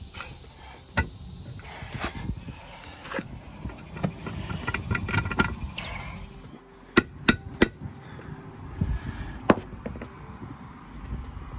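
Sharp metal clicks and knocks from the sterndrive's universal joint and yoke being handled and turned by hand. About seven seconds in come three loud strikes in quick succession, and another loud one follows about two seconds later.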